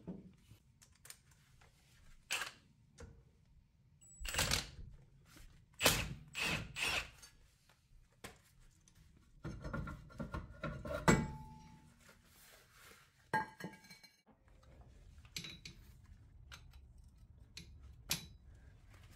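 Scattered metal clunks and knocks as a car's rear brake rotor is worked loose and pulled off its hub, one of them ringing briefly about eleven seconds in.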